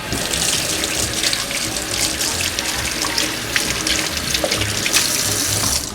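Kitchen tap running steadily as a strong stream, shut off just before the end, with background music underneath.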